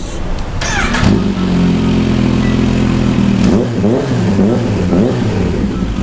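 Kawasaki Z H2's supercharged inline-four revving through a small aftermarket slip-on exhaust canister. The engine note rises sharply about a second in, holds steady, then goes up and down with throttle blips past the middle before steadying again.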